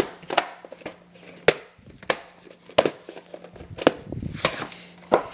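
Footsteps on a hardwood floor: a string of sharp knocks, roughly one every half second to a second, over a faint steady hum.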